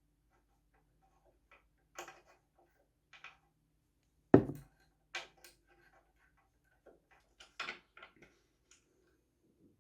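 Scattered clicks and knocks of parts and tools being handled while a Pressfit bottom bracket cup is fitted into a bicycle frame, with one sharp, heavy knock about four seconds in and a quick run of clicks near the end.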